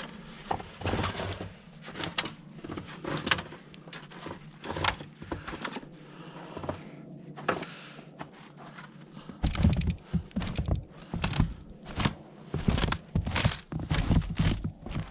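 Irregular thunks, knocks and scrapes of someone climbing up onto a shipping container and stepping about on it, with heavier thumps in the second half.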